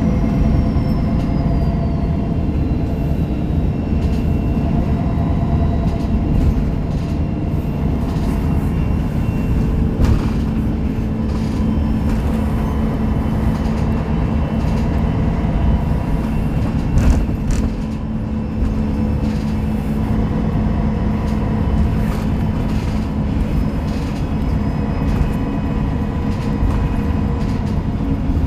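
Cabin sound of a 2003 MAN NG 313 articulated bus, its horizontal six-cylinder diesel running steadily. A faint falling whine sounds in the first two seconds, and there are a couple of sharp knocks, about ten seconds in and again after seventeen.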